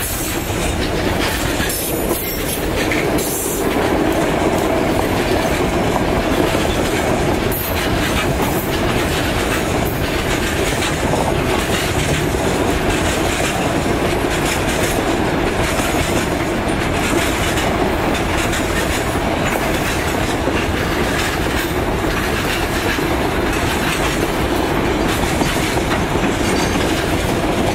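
A long freight train's boxcars and hopper wagons rolling past close by: a loud, steady noise of steel wheels running along the rails.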